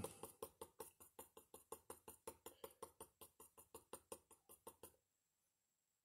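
Faint, quick taps of a dry brush stippling glass paint on a glass panel, about six light ticks a second, stopping suddenly about five seconds in.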